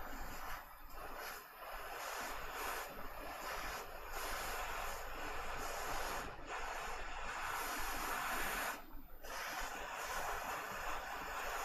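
Hot air rework station blowing a steady hiss of air onto a chip, with a few brief dips, as the part is heated to reflow it onto the circuit board.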